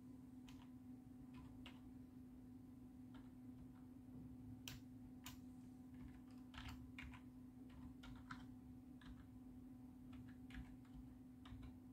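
Computer keyboard keys clicking faintly one at a time, with irregular gaps, as a file name is typed. A steady low hum runs underneath.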